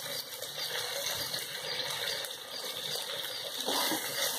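Sliced onions and spices sizzling steadily in hot oil in an aluminium pressure cooker, with a wooden spatula stirring them.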